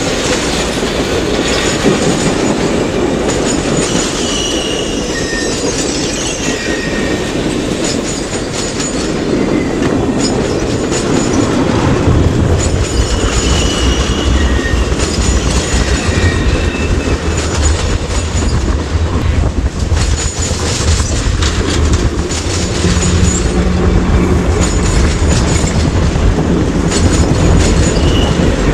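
Passenger cars of a steam excursion train rolling past close by: steel wheels clicking over the rail joints, with short high wheel squeals now and then. From about twelve seconds in the rumble grows louder and deeper as the cars pass right over the track-level view.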